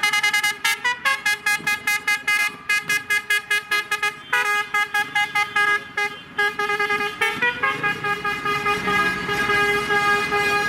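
A vehicle horn tooting over and over in short quick blasts, several a second, with a brief change of pitch now and then. Engines run underneath.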